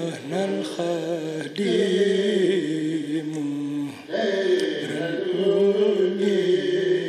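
A man's solo chant into a microphone: long held notes that waver and ornament the pitch, in two drawn-out phrases with a short break about four seconds in.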